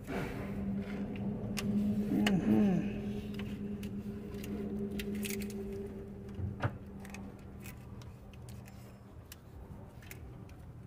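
Hand tools clinking on the terminal studs of a truck alternator as it is being wired up: a few sharp metal clicks. Under them runs a steady mechanical hum, with a short wavering whine about two seconds in; the hum fades away near the end.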